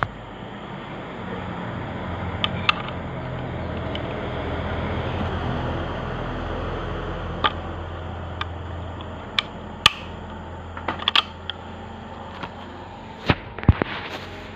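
Sharp clicks and knocks of tools being handled during car transmission repair work, about a dozen scattered through, with several close together near the end, over a steady low hum that swells and fades in the middle.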